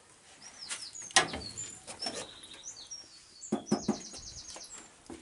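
Small birds chirping, with short high calls and one rapid trill about three and a half seconds in. A few sharp knocks sound over it, the loudest about a second in.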